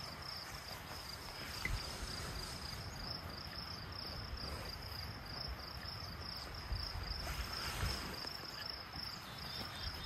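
Crickets chirring in a steady, high continuous trill, with a faint low rumble of wind underneath.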